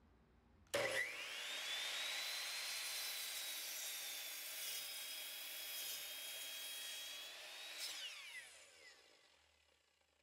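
A high-speed power-tool motor switched on, whining up to a steady high pitch within a second over a rushing hiss, running for about seven seconds, then switched off and winding down, its pitch falling as it fades.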